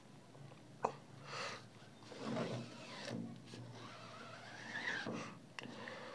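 Faint, intermittent rubbing strokes of an old plastic SIM card spreading sensitizer-mixed emulsion across a screen-printing mesh, with a sharp click a little under a second in.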